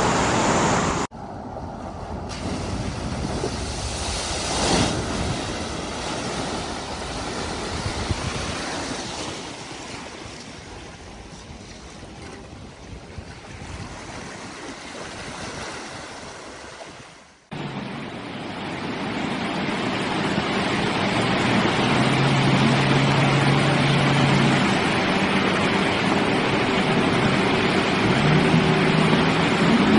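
Rushing, splashing water around a vehicle wading through floodwater. From about 17 seconds in, a steady rush of wind and surf with pickup-truck engines running as the trucks plough through shallow water. The sound changes abruptly about a second in and again at about 17 seconds.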